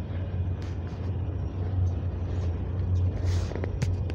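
Steady low mechanical rumble with a constant deep hum. A few sharp clicks and a short rustle come about three seconds in.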